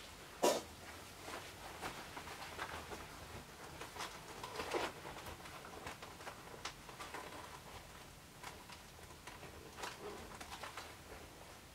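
Soft rustling and light knocks from the padded fabric of a zebra mascot costume as the wearer shifts and adjusts it, with one sharper knock about half a second in.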